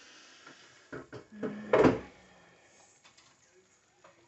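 Kitchen handling noise: a few light knocks, then one louder bang just under two seconds in.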